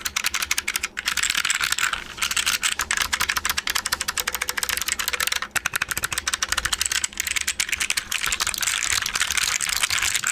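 Fast, continuous typing on a mechanical keyboard with clicky Alps White clone switches in a steel plate, under DCS Alps keycaps: a dense, loud run of sharp key clicks with a few brief pauses, stopping suddenly at the end.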